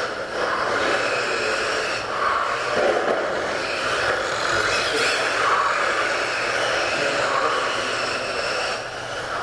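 Electric RC touring cars whirring around a carpet track in a reverberant hall. The motor and tyre noise swells and fades every couple of seconds as the cars go round.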